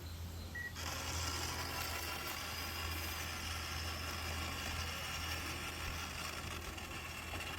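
Small electric motor of a Run Chicken automatic coop door whirring steadily as it drives the door, starting about a second in and stopping suddenly at the end.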